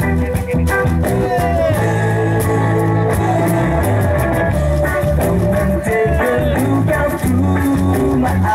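An upbeat song with a guitar, a walking bass line and a steady beat, with some singing.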